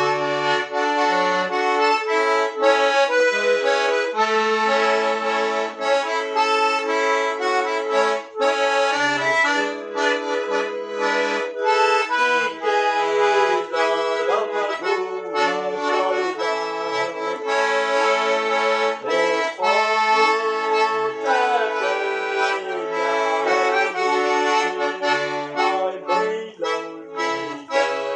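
Accordion (sanfona) playing a continuous melody, with its bass notes shifting underneath.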